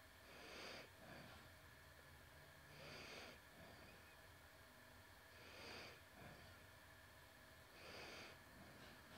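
Faint breathing close to the microphone over near silence: four slow breaths, about one every two and a half seconds.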